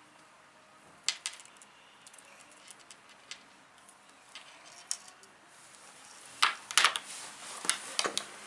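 Light clicks and taps of a hard plastic Play-Doh knife and tools against a table while modelling dough is cut into strips: a few single clicks at first, then a quick run of clicks and scrapes about two thirds of the way in, and two more near the end.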